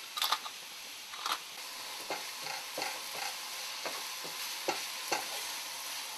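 Ground beef and onions sizzling in vegetable oil in a frying pan while a wooden spatula stirs through them, with a short scrape against the pan about every half second.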